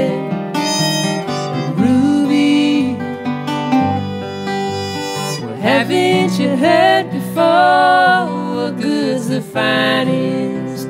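Acoustic folk band playing, led by acoustic guitar. About halfway through, a lead melody enters that slides and bends in pitch.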